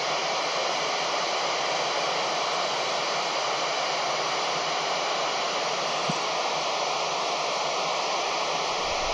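Steady hiss of static from a handheld 2-metre FM radio receiver, with no voice coming through between transmissions from the International Space Station. A small tick about six seconds in.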